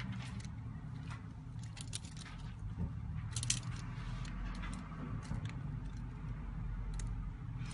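Scattered light clicks and small metallic taps over a steady low hum, the loudest cluster about three and a half seconds in.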